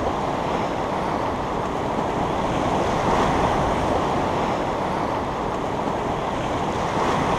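Ocean surf washing over a shallow beach in a steady rush, with wind noise on the microphone.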